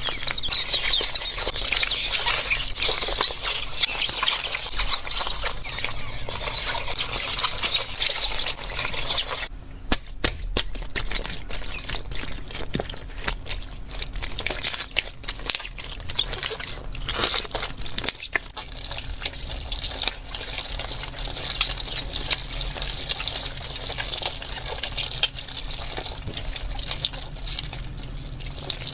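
Slime being squished and worked by hand: dense wet crackling with many small pops and clicks. The sound changes abruptly about nine and a half seconds in, to sparser, sharper clicks.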